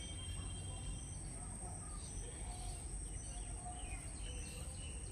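Outdoor rural ambience: a steady low rumble and a constant high whine, with a few faint bird chirps.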